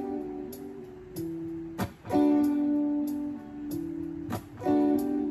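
Background music: chords strummed on an acoustic plucked string instrument, a strum about every two and a half seconds with each chord ringing on.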